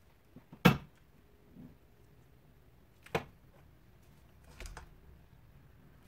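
Sharp knocks and taps from handling plastic paint cups and a stretched canvas: a loud knock under a second in, a smaller one about three seconds in, and a duller thud near the end.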